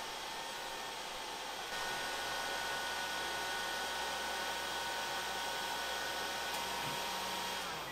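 Heat gun blowing steadily with a faint whine while it draws about 24 A from a LiFePO4 battery during a discharge capacity test. The rush steps up slightly about two seconds in and dies away near the end.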